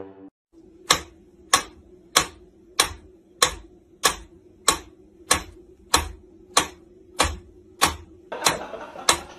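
Mechanical pendulum metronome ticking steadily, a little faster than one tick and a half per second.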